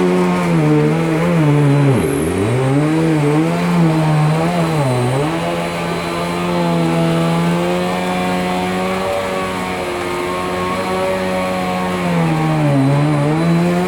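Bissell PowerLifter upright vacuum cleaner running on a rug, its motor giving a steady hum. The motor's pitch drops sharply and recovers about two seconds in, again around five seconds, and once more near the end.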